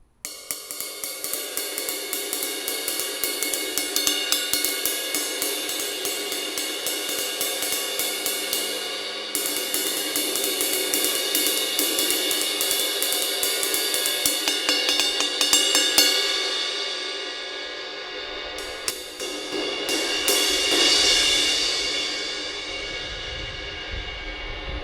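Zildjian 20-inch K Custom Dark Ride cymbal played with a stick in a steady rhythm of quick strokes over a sustained wash, with a swelling louder wash about twenty seconds in; it is a sound test of the cymbal after its crack has been repaired.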